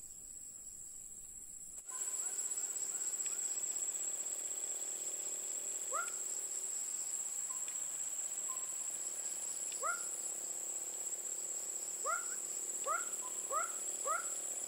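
Insects, crickets or cicadas, give a steady high-pitched trill that starts abruptly about two seconds in. Over it come short rising chirps from another animal, a few spaced out and then several in quick succession near the end.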